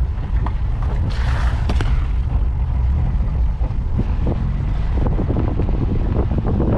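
Wind buffeting the microphone: a loud, steady low rumble with a few light clicks.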